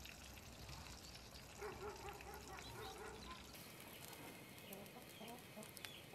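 Chickens clucking faintly, in short scattered calls.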